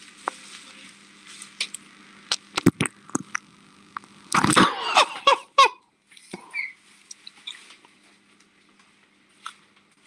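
A person's voice in one short loud burst about four seconds in, over a steady low hum and scattered clicks from a video-chat audio feed.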